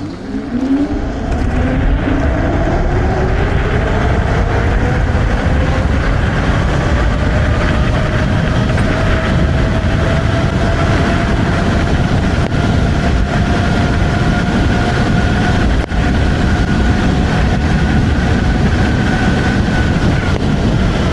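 Electric scooter's motor whining as it accelerates, the pitch rising over the first several seconds and then holding nearly steady at speed, over heavy wind rumble on the microphone.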